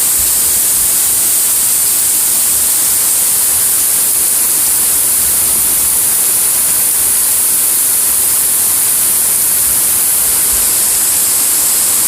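Heavy thunderstorm rain pouring down, a loud, steady hiss with no break.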